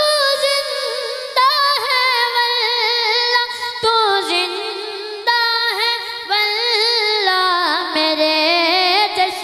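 A boy's solo voice singing a naat, an Urdu devotional poem, into a microphone. He holds long, wavering, ornamented notes, and the melody steps down to a lower pitch about four seconds in.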